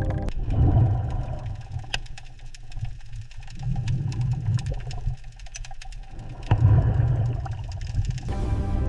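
A low rumble rising and falling in slow swells, with scattered faint clicks. Steady background music cuts out just after the start and comes back near the end.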